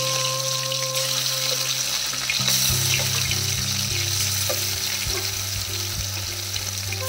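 Marinated chicken pieces frying in hot oil for chicken 65, a steady sizzle, over background music that picks up a steady beat a couple of seconds in.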